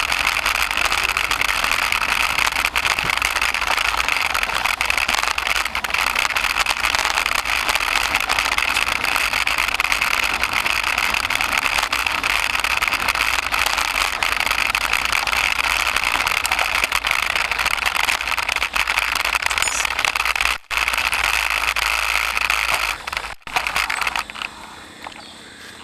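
Steady rattle and rush of a mountain bike riding a dirt trail, picked up by a camera mounted on the handlebars. It breaks off twice briefly near the end and turns much quieter in the last couple of seconds.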